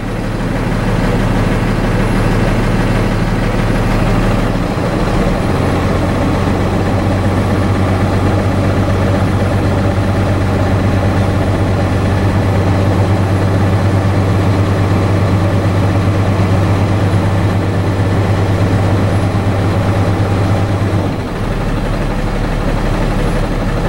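Semi-truck diesel engine running steadily while its air compressor builds brake air pressure toward governor cut-out. The engine note steps up about five seconds in and drops back shortly before the end.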